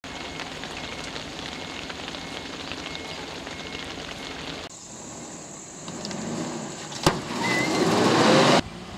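Steady hiss of rain and wet-road ambience. About five seconds in it gives way to a louder vehicle engine rising in pitch, with a sharp click about seven seconds in, then cuts off suddenly.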